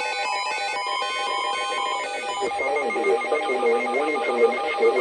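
Electronic alert tones: short beeps stepping quickly between pitches like a ringtone melody. About two seconds in, a steady high tone takes over, with a lower wavering sound beneath it.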